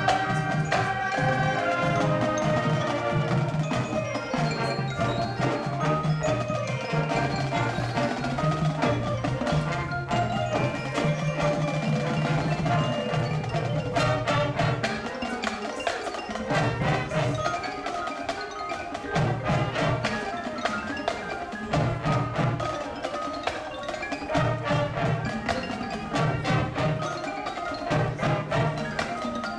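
High school marching band playing its field show, with the front ensemble's mallet percussion (marimbas, xylophones) prominent among many struck notes. Low notes pulse on and off through the second half.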